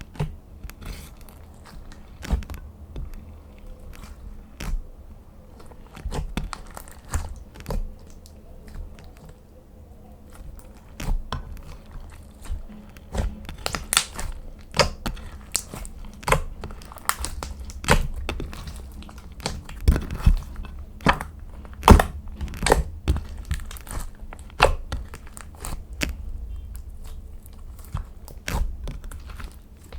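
Slime being kneaded and pressed by hand, giving irregular sharp pops and crackles, a few of them much louder than the rest.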